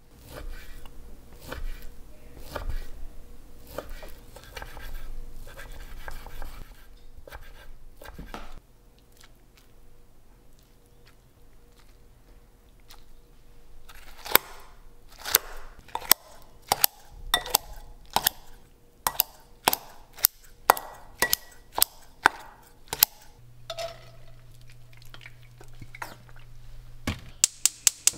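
A chef's knife chopping bacon on a wooden cutting board, then, after a quiet pause, kitchen scissors snipping fermented kimchi in a glass bowl in a run of sharp clicks. A steady low hum comes in near the end.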